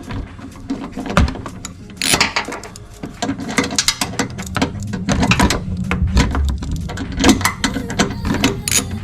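Hand ratchet wrench clicking in quick runs of strokes, thickest in the second half, as a headlight-assembly mounting bolt is tightened.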